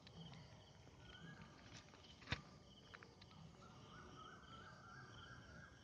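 Faint evening insects chirping in short pulses about twice a second, with a wavering tone that steps upward through the second half. A single sharp click sounds a little over two seconds in.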